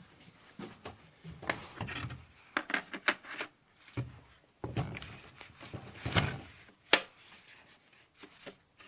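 Irregular plastic knocks and clicks from handling a battery chainsaw and fitting its battery pack, with several sharp clicks, the sharpest about seven seconds in.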